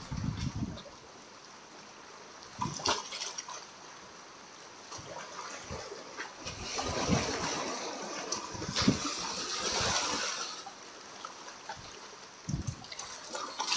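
Sea waves washing and splashing among concrete breakwater tetrapods, swelling louder for a few seconds past the middle, with a few short low thuds.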